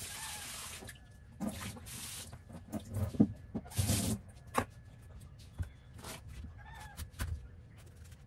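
Kitchen tap water running in short bursts as a steel bowl is rinsed in a sink, with metal dishes clinking and knocking in between.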